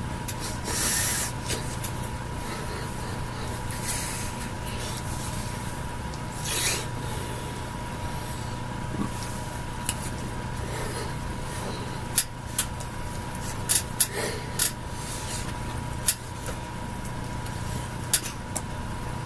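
Hands and sleeves rubbing and brushing, with several sharp slaps and claps of the hands, as a person signs in American Sign Language, over a steady electrical hum and hiss from the microphone.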